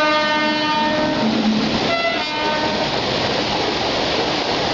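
Electric locomotive horn: a long held chord that breaks off a little over a second in, a brief lower note, then a short blast about two seconds in. After that comes a steady rush of the moving train and the waterfall pouring down beside the track.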